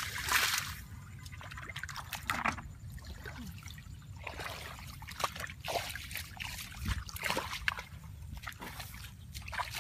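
Shallow muddy ditch water sloshing and trickling in irregular splashes as hands grope and scoop through it.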